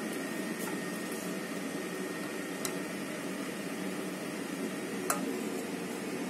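Metal ladle clinking twice against the pot or dishes while serving porridge, about two and a half and five seconds in, the second louder, over a steady low room hum.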